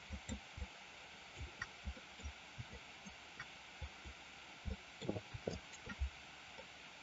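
Faint, irregular low thumps, a few a second, with a few light clicks, over a steady faint hiss: a computer mouse being moved and clicked on a desk during digital sculpting.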